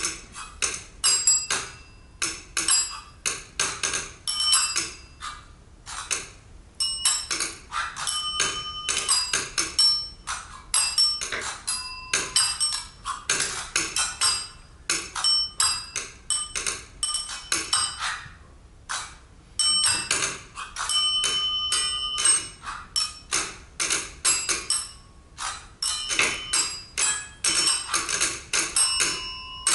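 Percussion trio playing small objects laid on a tabletop: a fast, rhythmic stream of dry taps and clicks, many of them with short, high pitched pings. The playing breaks off briefly twice.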